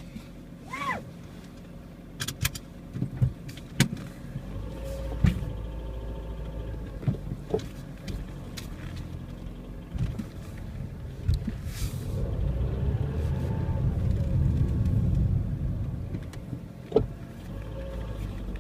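Ford Fiesta engine heard from inside the car while driving, pulling harder and louder through the middle of the stretch, with scattered sharp clicks and knocks. The noise under acceleration is what the owner calls an extremely annoying sound and suspects is the tappets, with a valve clearance of 0.24 mm, just over the 0.23 mm maximum.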